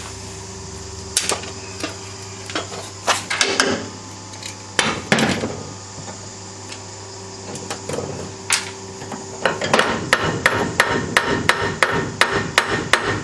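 Hammer blows on a VW Superbug engine part that is stuck fast, struck at its knock point to break it free: it is held by sealant, described as glued. Scattered single knocks give way, about nine seconds in, to a steady run of taps, about three a second.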